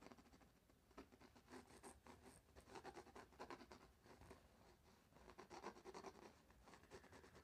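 Faint scratching of a pencil on canvas, a run of quick, irregular shading strokes as the pencil marks are darkened.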